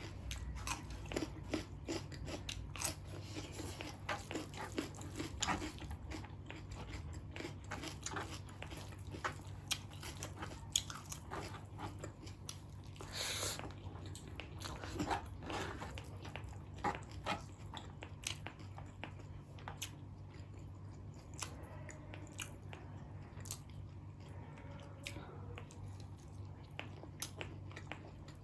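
Close-miked mouth sounds of a person eating: chewing and biting with small crunches and wet clicks, over a steady low hum. About halfway through there is a brief louder noise.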